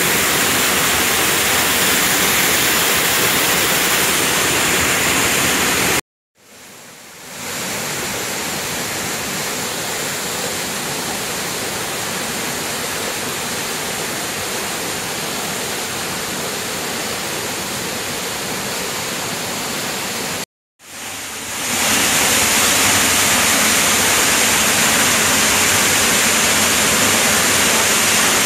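Steady rush of a waterfall pouring into a rock pool, then of a fast stream running over rocks. The sound cuts out briefly twice, about six and twenty seconds in; the middle stretch of stream is a little quieter than the rest.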